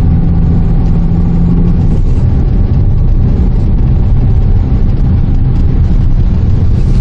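Inside the cabin of a 2008 Renault Samsung QM5 SUV on the move: a steady low rumble of engine and road noise, with a level hum that stops about two seconds in.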